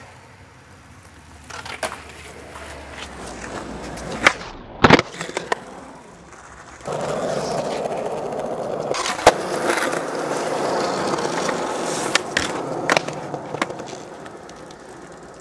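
Skateboard wheels rolling over rough asphalt, with two sharp clacks of the board hitting the ground about four and five seconds in. From about seven seconds a louder, steady wheel rumble close by, broken by a few more clacks, then fading.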